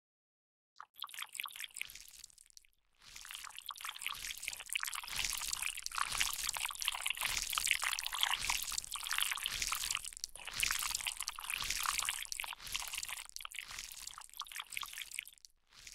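Wet, gooey sound effect of dripping and squelching liquid. It comes in thinly after a short silence and turns dense and crackling from about three seconds in.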